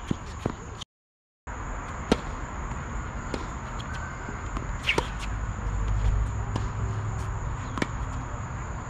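Tennis balls struck by rackets and bouncing on a hard court during a rally: a run of sharp pops, the loudest about two seconds in, over a low outdoor rumble. The sound drops out completely for half a second about a second in.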